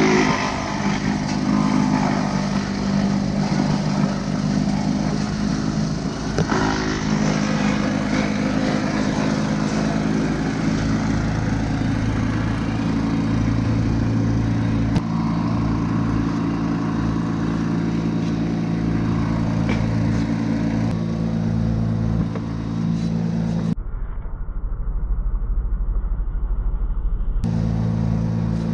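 An engine running steadily, with a deeper tone joining about eleven seconds in.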